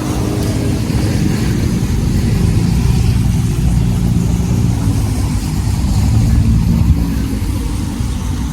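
A steady, low engine rumble from a motor running nearby, with little change in level.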